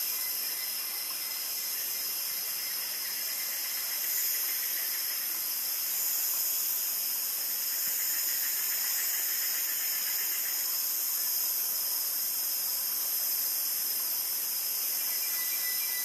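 Dense insect chorus, a steady high-pitched hissing drone, with a fainter trill that comes and goes around the middle.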